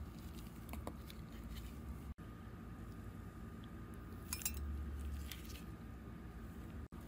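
A metal teaspoon tipping sugar and then instant dry yeast into a glass mug, with a few light clinks and scrapes of spoon on glass over a steady low hum. The sound drops out for an instant twice.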